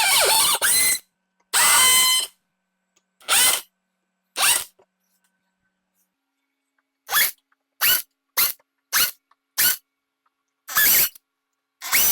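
Power drill drilling out rivets from golf cart body panels in about eleven short bursts: two longer runs at the start, then rapid quick bursts from about seven seconds in.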